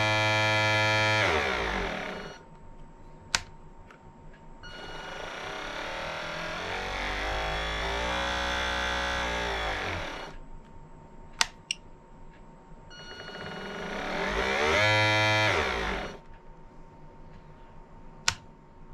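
RC model ship's drive motor run up and back down under the transmitter's throttle stick three times: each time a whine swells to a steady pitch and then winds down, with quiet pauses between. A few sharp clicks in the pauses come from the transmitter's forward/reverse switch being flipped.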